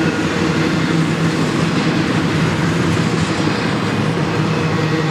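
Double-stack intermodal freight cars rolling past: a loud, steady rumble of steel wheels on rail, with a steady low hum under it.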